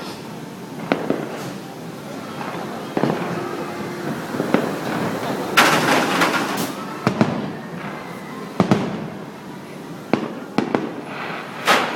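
Aerial fireworks bursting: sharp bangs at irregular intervals, about a second or two apart, with a dense crackling cluster about six seconds in.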